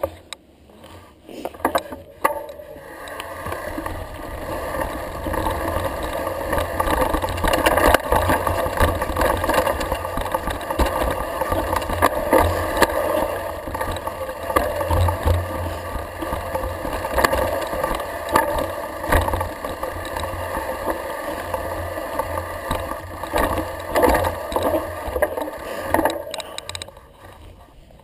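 Mountain bike rolling fast down a dirt forest trail: tyres rumbling on the ground and the bike rattling and clicking over roots and stones. The noise builds about two seconds in and eases off near the end.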